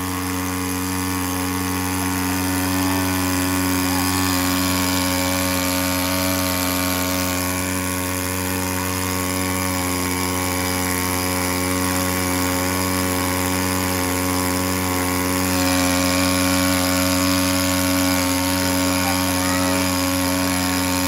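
Small engine of a remote-controlled floating pump boat running steadily under load, driving the pump that throws a strong jet of water through a hose.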